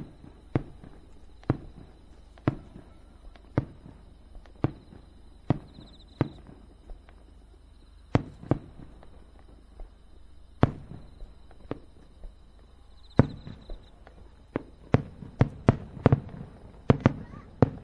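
Fireworks shells bursting in a string of sharp bangs, each with a short echo. They come about one a second at first, then irregularly, and quicker and more crowded near the end.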